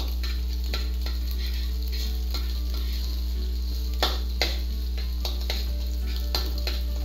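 Scrambled egg and diced carrots stir-frying in a wok, with a steady sizzle and a metal spatula scraping and clicking irregularly against the pan, sharpest about four seconds in. A constant low hum runs underneath.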